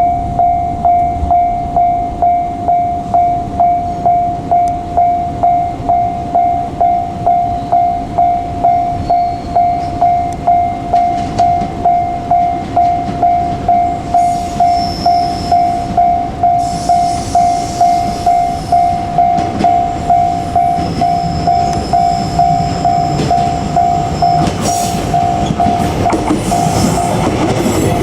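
Level-crossing warning bell ringing in an even rhythm of a little under two strikes a second as a JR Kyushu 817 series electric train approaches. In the last few seconds the rumble of the train rises and covers the bell.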